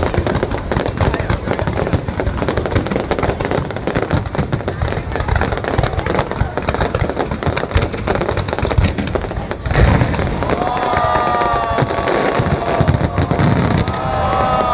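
Fireworks display: a dense, continuous crackle of bursting shells. About ten seconds in there is a louder bang, followed by a few drawn-out high tones.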